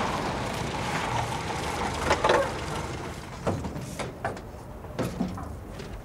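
A car's engine running as it pulls up and stops, with a loud rattle about two seconds in. In the second half, a car door opens and a few sharp knocks and steps follow as the driver climbs out.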